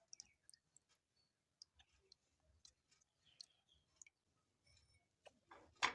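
Near silence with faint, scattered small clicks, and one sharper, louder click just before the end.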